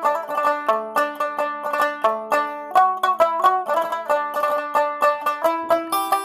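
Background music: a quick tune of plucked-string notes, several a second, each note sharply struck and fading fast.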